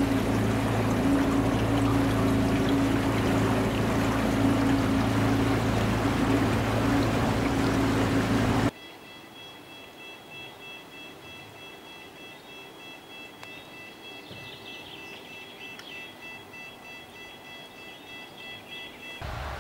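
Small boat's motor running steadily with a rushing wash of water. About nine seconds in, it cuts off abruptly to a much quieter hiss with a few faint, steady high tones.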